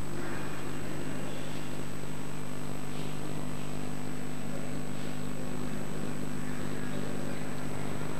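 Steady low hum with an even hiss and a faint thin high whine, with no distinct events.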